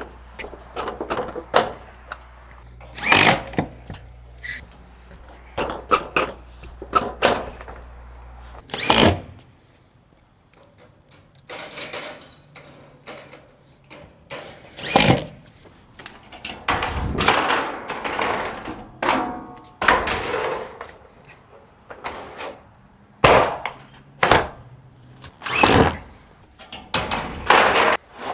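A string of thunks and metallic knocks from steel standing seam roof panels being walked on, set in place and fastened down.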